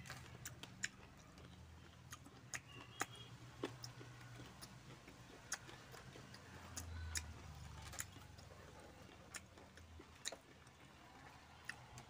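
Faint, irregular mouth clicks and smacks from chewing and licking fingers after eating by hand, over a low steady hum, with a brief low rumble about seven seconds in.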